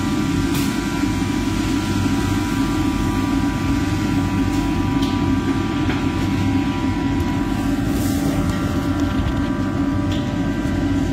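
Steady roar of a commercial kitchen's exhaust hood and cooking range running, with a faint steady whine above it and a few light clinks of utensils.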